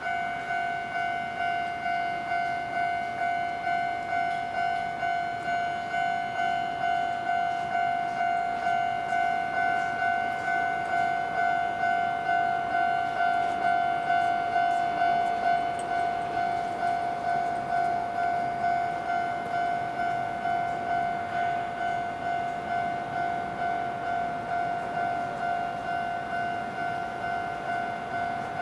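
Japanese railway level crossing alarm sounding: an electronic bell ringing in a rapid, even pulse of two steady tones, starting suddenly. It warns that a Toden Arakawa Line tram is approaching the crossing.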